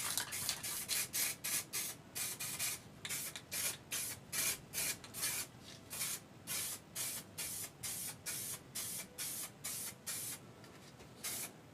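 Aerosol can of aluminium primer spraying in quick short bursts, about two to three hisses a second, with a brief pause near the end, as a light coat goes onto a painted prop.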